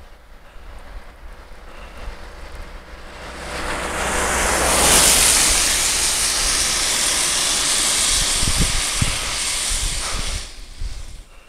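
A car overtaking on a wet road: tyre hiss and spray swell up over a couple of seconds, stay loud while the car pulls ahead, then fall away about ten seconds in.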